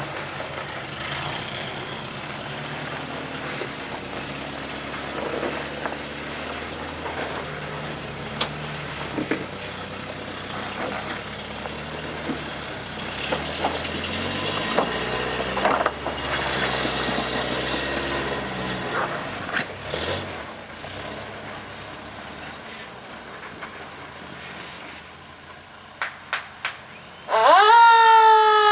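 Off-road buggy's engine running at low revs, with scattered sharp knocks. About a second before the end, a loud siren-like wail starts, rising sharply in pitch and then slowly falling.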